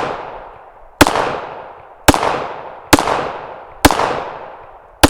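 Springfield 1911 A1 pistol in .45 ACP firing five single shots about a second apart, each sharp crack followed by a ringing echo that dies away.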